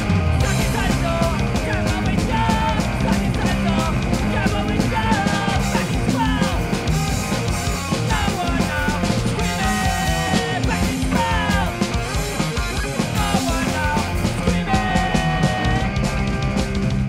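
Punk rock band playing live in a rehearsal room: a singer's vocals over electric guitar, bass guitar and a drum kit.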